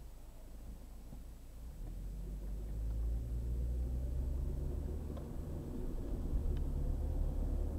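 Car driving along a highway: low engine and road rumble that grows louder about two seconds in and then holds steady.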